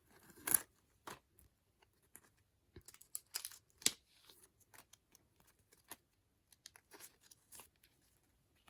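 Intermittent rustling and crinkling of packaging as photocards are handled, in short scattered crackles, loudest about half a second in and again near four seconds.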